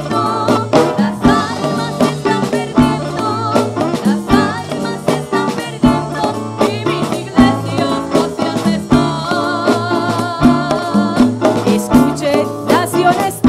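Live church band playing a Latin-rhythm hymn: drum kit keeping a steady beat under bass, guitar and horns (trumpet and saxophones), with voices singing along.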